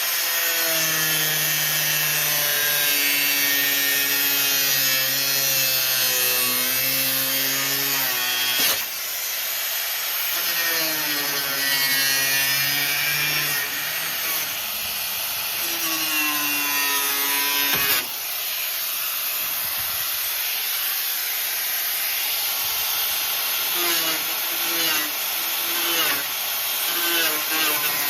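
Angle grinder with a cutoff wheel cutting through steel, its motor pitch wavering as it cuts, with two short breaks about a third and two-thirds of the way through.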